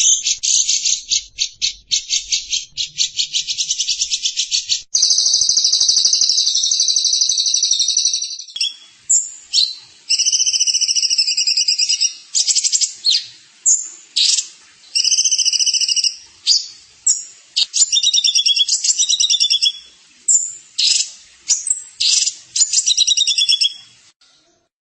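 A small songbird singing: a rapid chattering run of ticks, then a long buzzy high trill about five seconds in, then a string of short buzzy phrases with brief gaps, stopping shortly before the end.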